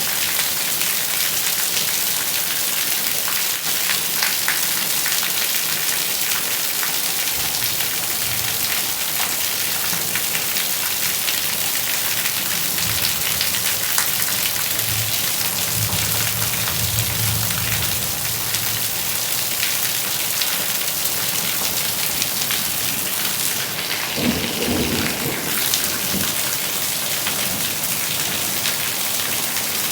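Steady rain falling, an even hiss, with a low roll of thunder rumbling from about a quarter of the way in to past the middle and another short rumble later on.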